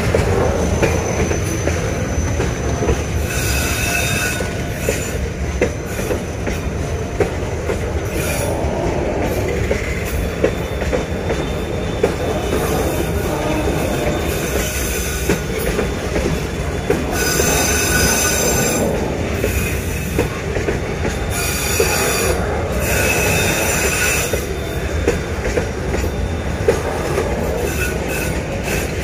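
Freight train of covered box wagons rolling slowly past close by: a steady rumble of wheels on rails with rail-joint clicks. High-pitched wheel squeal comes and goes several times as the wagons take the curve.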